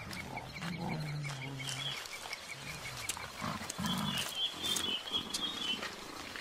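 Mountain gorilla giving deep, low grunting calls, one held about a second near the start and shorter ones a few seconds later. A bird chirps in a fast, even series behind it, then a higher warbling trill follows.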